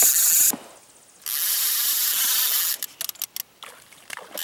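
Fishing reel working against a hooked trout: a steady high whirring, clicking sound that cuts out abruptly about half a second in and resumes, then breaks into short choppy bursts in the second half.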